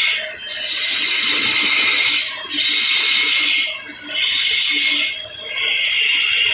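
Woodworking tool working in repeated passes: a loud, rasping hiss lasting one to two seconds each time, five times over, with short breaks between them.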